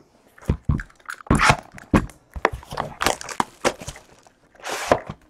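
Cardboard trading-card boxes being handled: irregular knocks and taps as they are picked up, shifted and set down on the mat, with a short scraping slide near the end.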